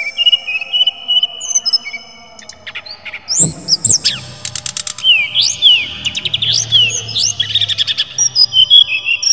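A brown-chested jungle flycatcher (sikatan rimba dada coklat) singing a varied song of clear high whistled notes, quick rising and falling slurs and rapid trills. The song grows louder and busier from about three and a half seconds in.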